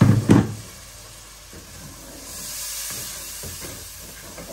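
Curry base of onions and ground spices hissing and sizzling in a pot, with a splash of hot water just added to the too-dry spices so they don't burn, as it is stirred with a wooden spatula. Two loud knocks right at the start.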